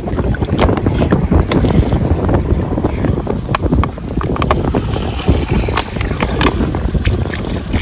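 Wind buffeting the microphone as a steady, loud rumble, with scattered sharp knocks and clicks throughout.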